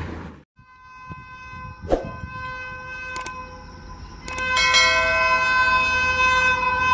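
Train rushing past, cut off abruptly after about half a second. Then an approaching Indian electric locomotive's horn sounds one long steady note, with a few sharp clicks. About four and a half seconds in it gets louder and a second tone joins.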